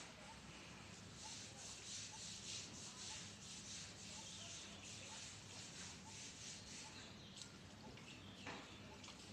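Faint outdoor ambience: a steady high hiss that pulses several times a second, with small chirps repeating about once a second and a short noise near the end.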